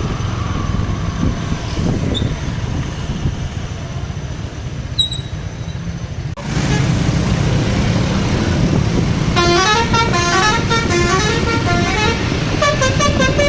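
Bus engine and road noise, then, after a sudden change about six seconds in, a Basuri V3 telolet horn, a multi-tone bus air horn, plays its quick run of stepped notes from about nine seconds in, sounding twice.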